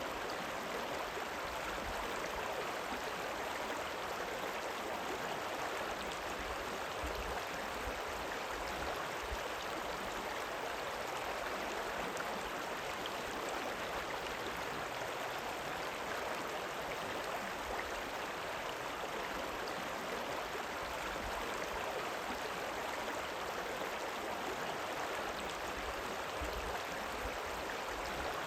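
River water running and rippling in a steady, even rush.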